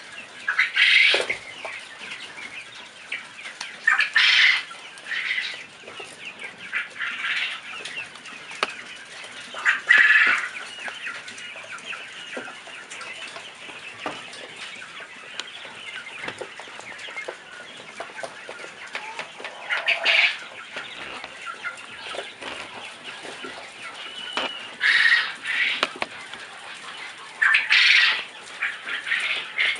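A flock of young chickens of mixed ages clucking and peeping steadily, with louder calls standing out several times.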